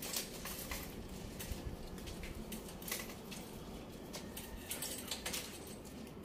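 Light, scattered clinks of cutlery on dishes at irregular intervals, over a steady background noise.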